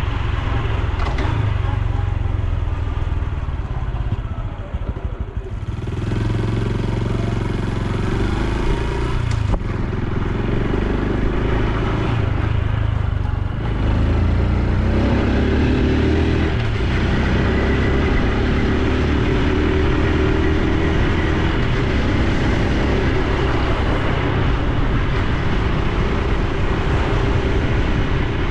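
Honda Super Cub C125's air-cooled single-cylinder engine and exhaust under way while riding. The engine eases off briefly about four to five seconds in, then pulls again and runs on, its pitch rising and falling with speed.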